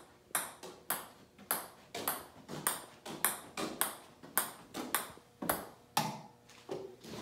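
Ping pong ball bouncing repeatedly on the face of a golf club, a sharp ping about twice a second, kept going as a juggling trick.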